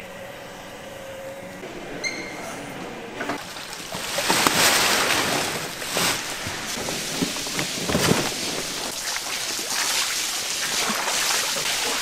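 Loud rushing, hissing noise that sets in about three seconds in and swells several times, around four, six and eight seconds in. Before it, a steady machine tone fades out and a short high beep sounds about two seconds in.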